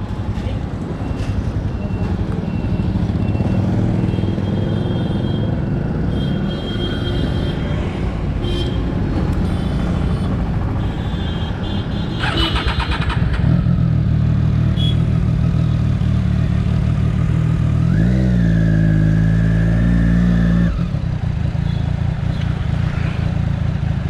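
Triumph Daytona 675's inline three-cylinder engine through an Arrow exhaust, running as the bike rides slowly through town. About eighteen seconds in the revs rise and are held for a couple of seconds, then drop back.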